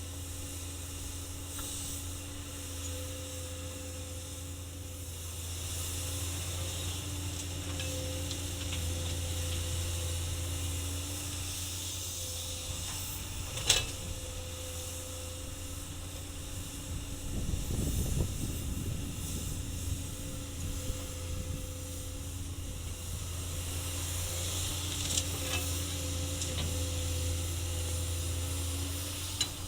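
Komatsu excavator's diesel engine running steadily, a low hum with a hiss over it. There is a sharp knock about 14 seconds in, and a rougher low rumble a few seconds later.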